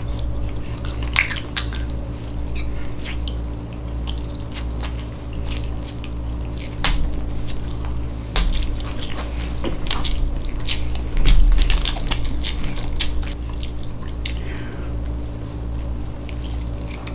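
Close-up mouth sounds of someone chewing and biting canned Spam: wet smacks and sharp clicks, with a few louder low thumps, over a steady low hum.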